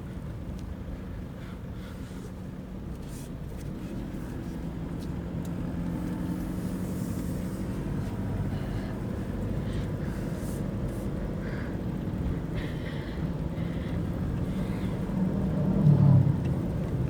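Inside the cabin of a Toyota Fortuner, its 2KD-FTV 2.5-litre four-cylinder turbodiesel drones steadily under way, with road noise. It grows a little louder from about four seconds in, and a brief louder low rumble comes about a second before the end.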